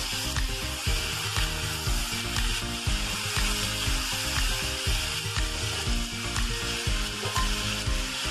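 Freshly added chopped tomatoes, onions and green chillies sizzling in hot oil in an iron kadai, stirred with a spatula that scrapes and knocks against the pan again and again.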